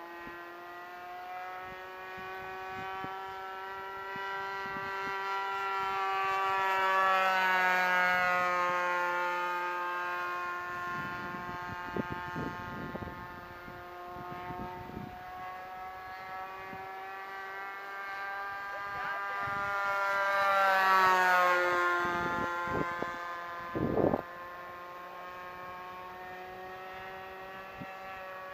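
Super Tigre 51 two-stroke glow engine with a Pitts-style muffler on an RC model plane in flight, running steadily at a high drone. It grows louder and drops in pitch as it passes by, twice, about 7 and 21 seconds in. A short thump comes about three-quarters of the way through.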